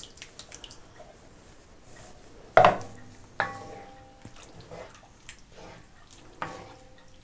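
Canned tomatoes being tipped into a wok and stirred through with a spatula: soft scraping and small clicks, with three louder ringing metallic knocks against the pan about two and a half, three and a half and six and a half seconds in.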